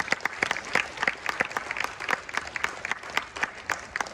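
A congregation applauding: many hands clapping steadily together.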